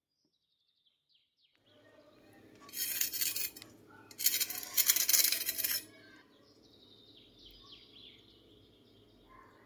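A knife crunching through the crisp, browned crust of a potato frittata on a wooden board: two loud crackling cuts, the first about three seconds in and a longer one from about four to six seconds, over a faint steady hum.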